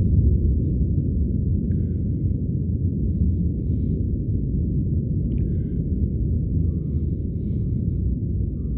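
Distant rumble of a climbing Rocket Lab Electron rocket's nine Rutherford engines: a deep, steady rumble that slowly fades.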